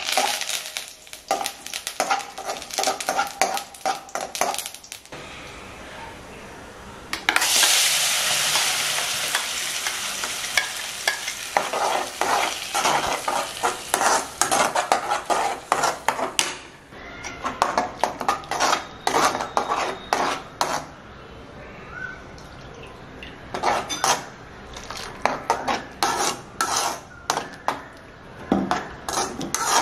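A spoon stirs a tempering of mustard seeds and curry leaves crackling in hot oil in a metal kadai. About seven seconds in, a loud sizzle breaks out and fades as the ground tomato chutney goes into the hot oil. Then come repeated scrapes of the spoon against the pan as the thick chutney is stirred.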